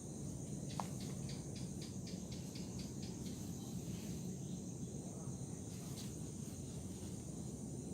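Steady high-pitched chorus of crickets or similar insects, with a quick run of about ten short chirps in the first few seconds, over a low steady rumble.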